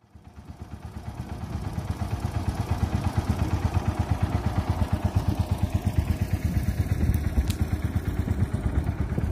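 Small boat's outboard motor running steadily at low trolling speed, with a rapid pulsing beat. It fades in over the first two seconds.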